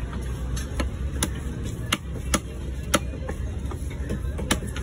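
Heavy cleaver chopping spade fish into pieces on a wooden log chopping block: sharp knocks at an irregular pace, roughly one every half second.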